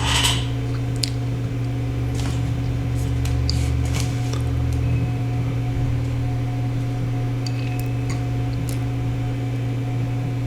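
Steady low electrical hum throughout, with scattered light metallic clicks and taps from a 9/16 socket wrench as the pump frame bolts are taken out of the base.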